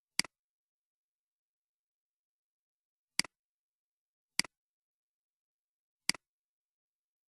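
Computer mouse clicks, four in all and spaced unevenly, each a quick press-and-release double click in otherwise dead silence.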